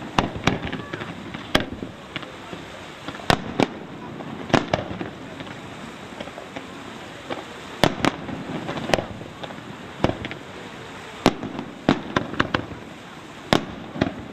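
Pains display firework shells bursting overhead: about fifteen sharp bangs at irregular intervals, some in quick pairs, others a second or more apart.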